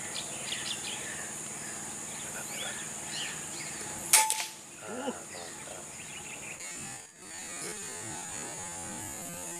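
A steady high insect drone, with one sharp loud crack about four seconds in: a single air rifle shot at the waterhens.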